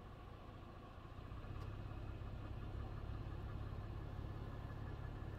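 Car driving on a gravel road, heard from inside: a steady low rumble that grows louder about a second and a half in.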